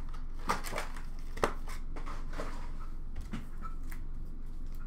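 Hands handling foil-wrapped trading card packs on a glass counter: light rustling of the wrappers and several sharp taps and clicks as packs are picked up and set down.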